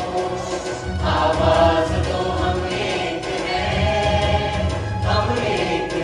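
Background music: voices singing together over instrumental accompaniment, with new sung phrases coming in about a second in and again near the end.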